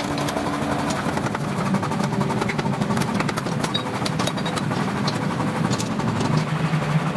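A machine running with a steady low hum, with many small irregular clicks and ticks over it.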